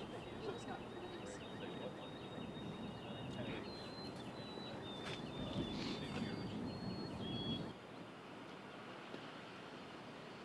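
Outdoor ambience: a steady background rumble with small birds chirping and calling in thin, high notes. The background drops away suddenly about three-quarters of the way through.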